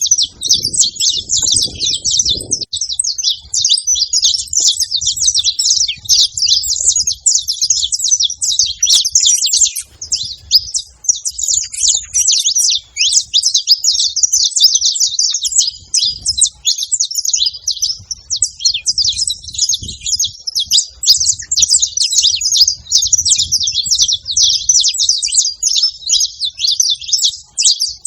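A male and a female saffron finch chirping and singing nonstop, a dense run of high, rapid chirps with no pauses.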